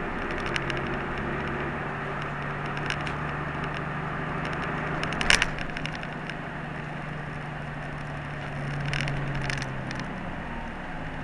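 Route bus heard from inside the cabin while running on the road: a steady engine drone and tyre noise, with light rattles and a single sharp clack about five seconds in. The low engine hum drops away near the end as the bus eases off.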